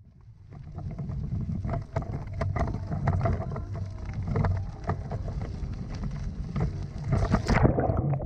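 Canoe portage cart wheels rolling over a gravel and dirt trail, heard from a camera riding low on the cart: a steady rumble with many small crunching clicks of stones. Near the end there is a short splash as the wheels roll into a puddle.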